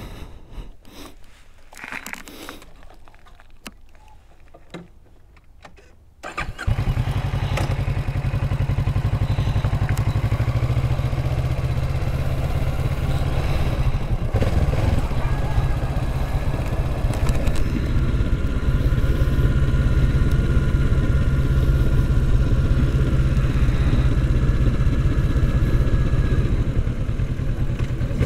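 A few faint clicks, then about six seconds in the Kawasaki Z650's parallel-twin engine cuts in abruptly, loud and steady, as the motorcycle is ridden along the road.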